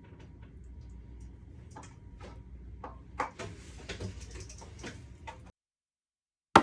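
Metal taping knife clinking and scraping against a metal mud pan, loading drywall joint compound, in irregular light knocks. It stops abruptly about a second before the end.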